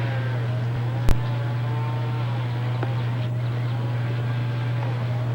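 Steady low engine-like hum with a fainter wavering whine above it, and one sharp click about a second in.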